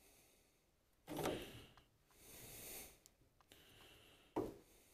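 Mostly quiet, with faint breath sounds about a second in and again around two and a half seconds in, and a brief short handling noise near the end.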